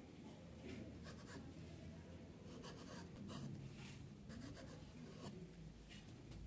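Kitchen knife cutting through soft bread dough and scraping and tapping on a wooden chopping board, faint, with a short stroke every second or so.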